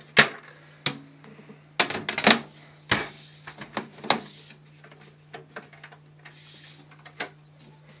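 Scattered clicks and knocks of plastic and aluminium as a Power Mac G5's clear plastic air deflector is pushed into place and its aluminium side panel is fitted back onto the case.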